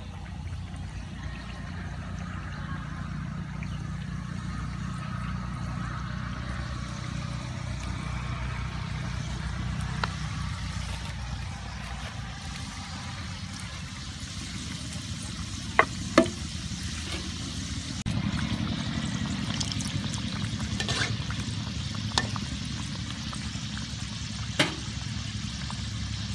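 Singaras deep-frying in hot oil in an aluminium karahi: a steady bubbling sizzle, with a few sharp clicks, the loudest a pair about halfway through.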